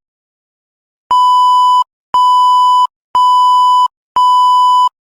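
Four identical electronic beeps, about a second apart, each a steady tone held just under a second. They start about a second in, after a moment of silence.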